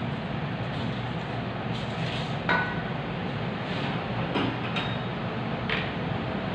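A few light metallic clicks and clinks of small carburetor parts and tools being handled, some with a short ring, over a steady background hum.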